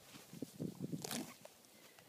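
Icelandic horse grazing close up: irregular crunching and tearing of grass as it pulls the grass into its mouth with its tongue instead of nipping it off with its incisors, the way a horse grazes when end-stage EOTRH makes its incisors too painful to bite with. A sharper rasp of torn grass comes about a second in.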